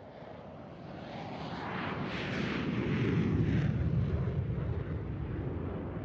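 McDonnell Douglas F-4 Phantom II twin-engine jet fighter taking off. The engine roar swells to a peak about three seconds in, with a shifting high hiss at its loudest, then slowly fades.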